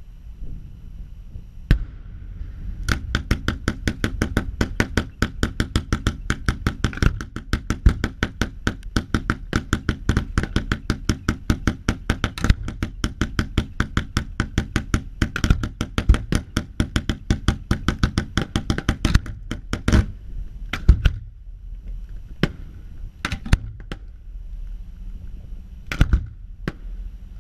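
Aerial fireworks going off. After one early bang, a rapid string of sharp bangs at about four or five a second runs for roughly sixteen seconds, then breaks off into scattered single bangs and pairs.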